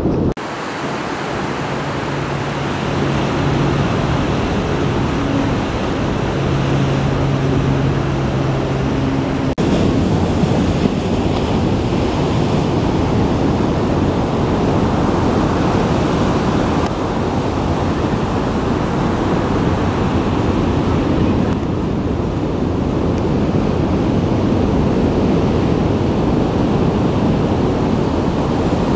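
Ocean surf breaking and washing in, a steady rush of white water. Under it a low steady hum sits for the first several seconds and stops abruptly about ten seconds in.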